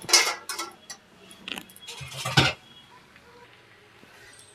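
Steel spatula scraping and clinking against a steel kadhai of cooked aloo gobhi for about half a second at the start, then a short low thud about two seconds in.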